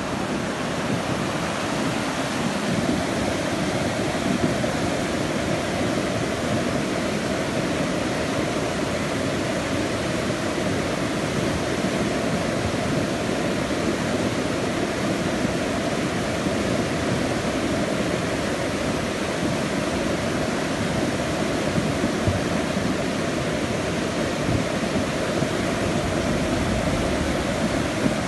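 Muddy flash-flood water rushing and churning down a swollen stream channel, a steady rush of water with no letup.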